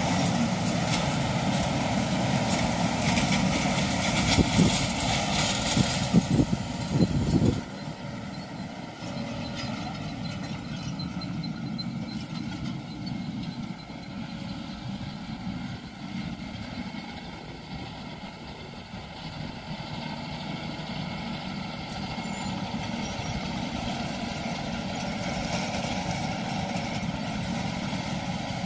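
John Deere tractor engines running steadily as they pull a seed drill and a cultivator across a field. The sound is loud with a few low thumps in the first several seconds, then drops suddenly to a quieter, more distant engine sound.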